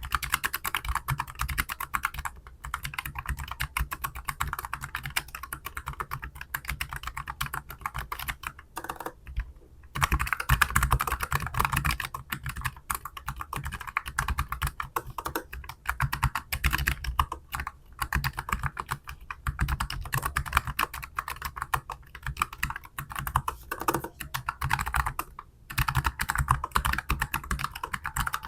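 Fast, continuous typing on a Keychron K15 Pro low-profile mechanical keyboard fitted with Gateron low-profile Banana tactile switches, with a few short breaks in the key clicks.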